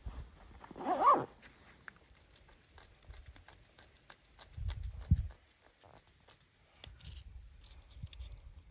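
Hands handling gear: a pouch zipper pulled about a second in, a dull thump near the middle, and small scattered clicks and rustles as dry birch bark is set down on a rock.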